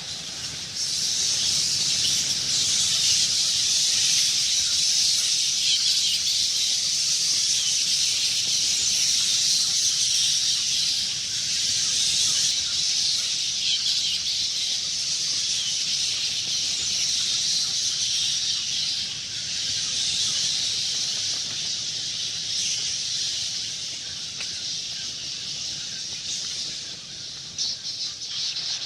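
A swarm of bats chittering: a dense, unbroken mass of high-pitched squeaks, with a faint low rumble beneath. It swells about a second in and stays steady after that.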